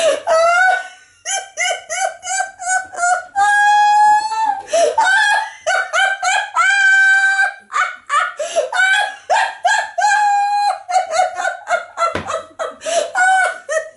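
A woman laughing hysterically: loud, high-pitched honking laughter in quick pitched bursts, broken by several long held squeals.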